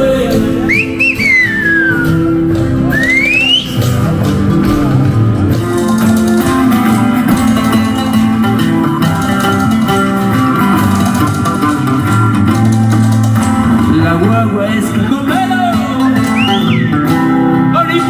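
A Silbo Gomero whistler, fingers at the mouth, whistles one falling and then one rising glide in the first few seconds over live music. Then live folk music goes on, with singing, guitar and hand drums, and a few more short whistle glides near the end.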